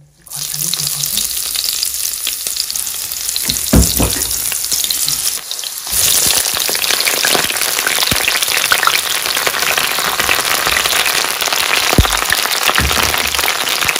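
Eggplant slices sizzling steadily in hot oil in a pan. The sizzle grows louder about halfway through, and a few short knocks sound over it.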